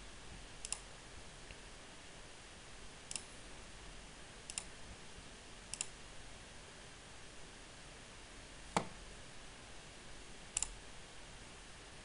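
Computer mouse buttons clicking, six short clicks spread out with pauses of one to three seconds, over a faint hiss; the one about three-quarters of the way through is the loudest and sharpest.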